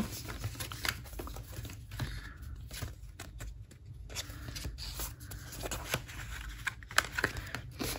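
Paper banknotes and envelopes being handled: soft rustling and sliding of paper with scattered light clicks and taps, one sharper tap about seven seconds in.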